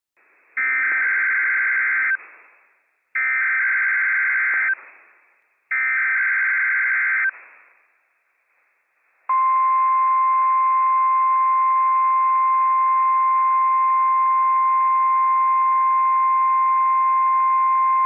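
NOAA Weather Radio emergency alert signal for a Required Weekly Test: three short bursts of buzzy digital SAME header data, then a steady single-pitch warning alarm tone held for about nine seconds.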